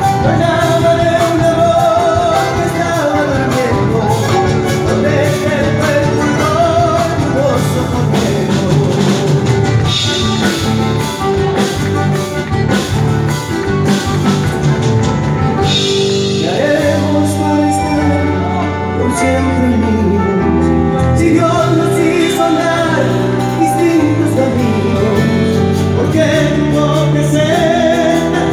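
A live Argentine folk band plays a song over the stage PA while a man sings lead, backed by guitars and bass; it is a sound-check run-through.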